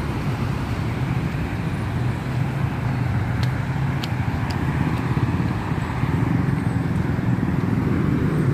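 Steady road traffic on a busy street: a continuous low rumble of car engines and tyres, with a few faint, short high clicks about four seconds in.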